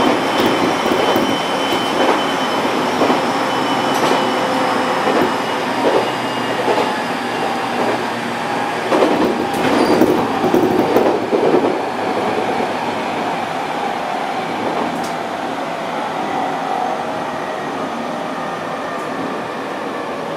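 701-series electric train running on the rails, heard from the cab, with a steady rumble and irregular clicks and knocks from the wheels over the track, busiest in the first half. A faint wheel squeal runs through it, and the noise smooths out and grows slowly quieter in the second half as the train slows.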